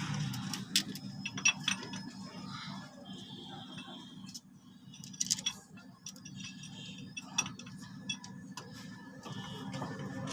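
Hand tools clicking and clinking against metal engine fittings, in scattered light clicks over a low steady hum.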